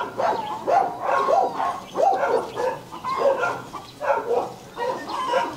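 Young Rottweiler puppies yipping and whining in a steady string of short high calls, two or three a second.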